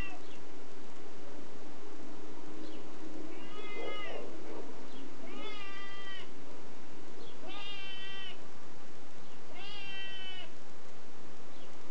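A spotted tabby cat meowing four times, each meow under a second long and about two seconds apart.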